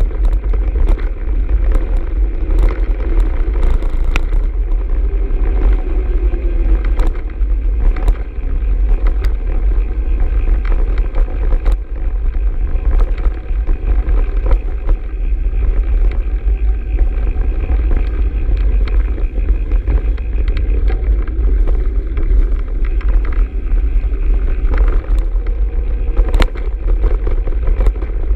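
Mountain bike riding fast down a dirt trail, heard through a handlebar-mounted camera: a steady heavy rumble of wind and tyre noise on the microphone, with frequent sharp clicks and rattles as the bike goes over bumps.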